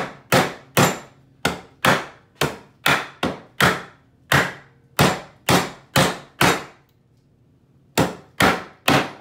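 Mallet blows on wood, driving a tenoned rail down into its mortise during dry assembly of the frame: a run of about fourteen sharp knocks at roughly two a second, a pause of about a second and a half, then three more.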